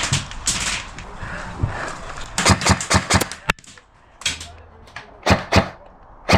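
Airsoft guns firing: a quick volley of sharp shots about two and a half seconds in, a single sharp crack just after, then a few more short shots and pairs.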